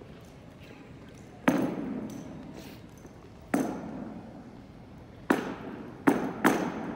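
Sharp knocks from a two-cadet rifle drill routine on a hardwood gym floor, the rifles and boots striking, each knock ringing on in the gym's echo. There are five of them: two about two seconds apart, then three close together near the end.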